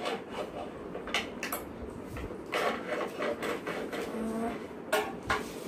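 Irregular rustles, taps and scratches of a paper sheet being handled and marked with a pencil on a tabletop.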